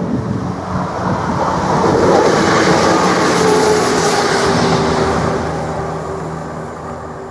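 A Class 171 Turbostar diesel multiple unit passes over the level crossing at speed. Its noise swells to a peak about two to four seconds in, then fades away. The crossing's alarm keeps sounding a steady tone underneath.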